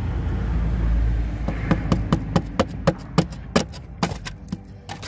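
A string of sharp knocks, about four a second, from a tool striking the car's underside as the body-filler floor pan is broken away. They start about a second and a half in, after a low rumble that fades.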